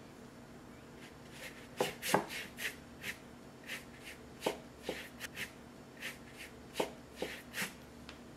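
Flat squirrel-hair brush swept across wet cold-pressed cotton watercolour paper: a series of soft, scratchy brush strokes at an irregular pace, about one or two a second.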